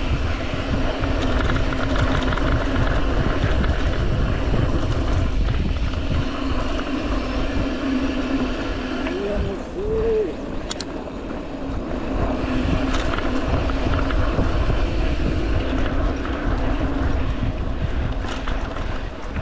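Mountain bike ride on a dirt trail: wind buffeting the microphone over the rumble of tyres on the ground, with a steady hum underneath. Two short squeals, each rising and falling, come about nine to ten seconds in.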